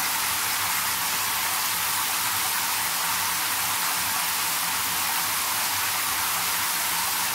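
Handheld shower head spraying into a partly filled bathtub, the spray splashing onto the water surface as a steady, even hiss.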